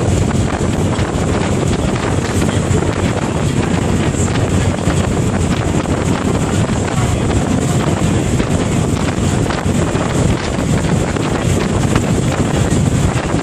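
Steady wind buffeting the microphone on the deck of a moving passenger ferry, over the ferry's engines and the rush of water along its hull.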